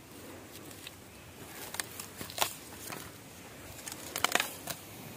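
Dry, fire-scorched bamboo stems and twigs crackling and snapping as a gloved hand pushes into a bamboo clump. The snaps are scattered, with a sharp one about halfway and a cluster near the end.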